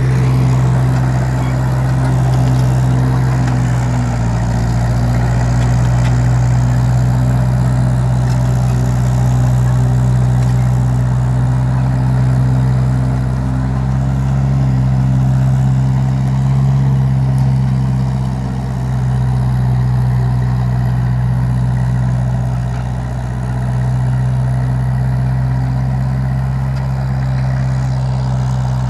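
Old International crawler loader's engine running steadily as the machine drags a log on a chain, a deep, even drone with only slight dips in level.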